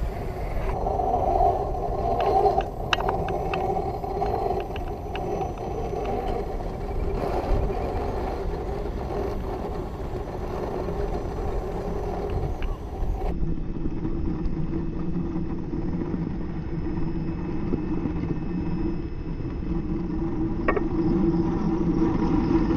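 Electric RC rock crawler's motor and geartrain whining steadily as it crawls slowly over rock, with a few light clicks about two to four seconds in. The sound turns duller about halfway through.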